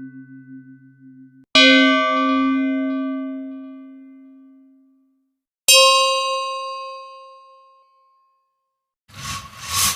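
Struck metal ringing like a bell: a previous ring fades out, then two sharp clangs about four seconds apart, each ringing out and slowly dying away. A short noisy burst near the end.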